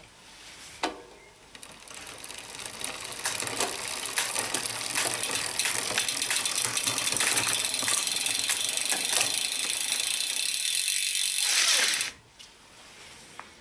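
Bicycle chain running through a Shimano 11-40 cassette and Ultegra RX clutch rear derailleur as the cranks are turned by hand, rattling and clicking as the chain shifts up the cassette onto the 40-tooth sprocket. The whirr builds over the first few seconds and cuts off suddenly about twelve seconds in.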